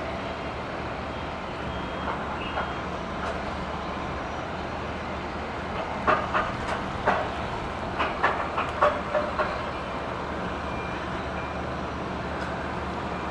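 Airport cargo-handling equipment running with a steady hum, and a quick run of about a dozen metallic clanks and knocks from about six to nine and a half seconds in.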